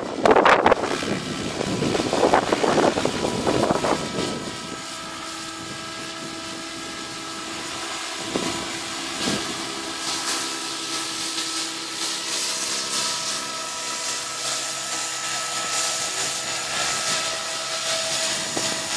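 SAB Goblin radio-controlled model helicopter flying in and hovering low, a steady whine of rotors and drive made of several held tones that grows louder towards the end. Wind buffets the microphone for the first few seconds.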